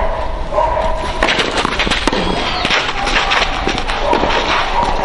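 Tennis rally on a clay court: sharp racket-on-ball hits come in a cluster in the middle, over a steady background of higher tones.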